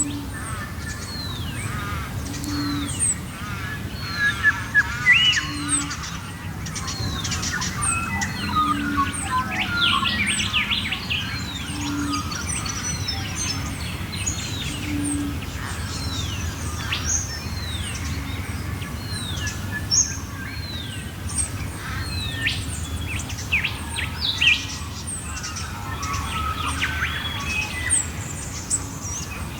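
Dawn chorus of many Australian birds singing at once, with repeated downward-sweeping whistles and chirps overlapping, and a short low call repeated about every three seconds.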